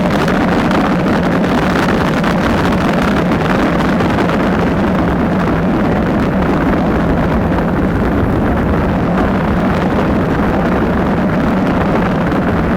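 Space Shuttle Columbia's three main engines firing together on the launch pad in a static test firing, the last critical test before flight: a loud, steady rushing noise.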